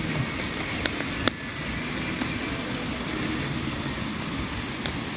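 Wood campfire burning, giving three sharp crackling pops, the loudest just over a second in, over a steady low rumble.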